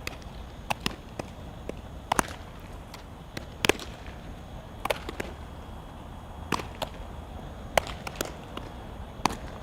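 Softballs smacking into leather gloves as players throw and catch, with about a dozen sharp pops at irregular intervals.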